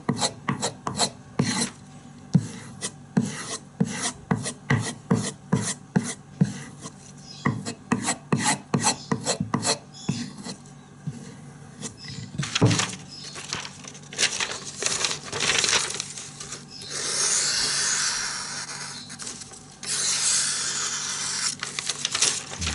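Steel knife blade being stropped on a leather strop loaded with fine diamond spray: quick back-and-forth rubbing strokes, about two or three a second, then fewer strokes and two longer drawn rubs near the end. The stropping works a small remaining notch out of the edge near the belly.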